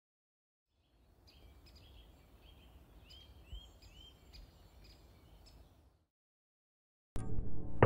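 Faint outdoor ambience with a small bird giving a run of quick rising chirps, which cuts off suddenly. After about a second of silence, loud music starts abruptly near the end.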